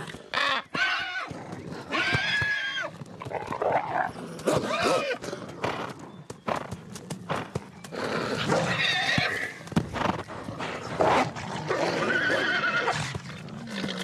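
A horse neighing again and again in distress as wolves attack it, its wavering calls breaking off and starting again, with knocks and scuffling between them.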